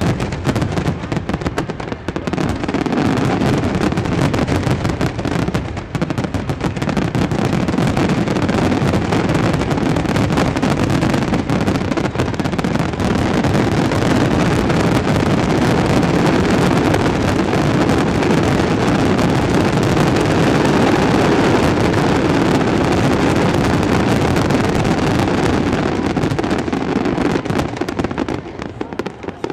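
Fireworks finale: a dense, continuous barrage of aerial shell bursts, many reports overlapping into one long rumbling crackle. It thins out and drops in loudness near the end.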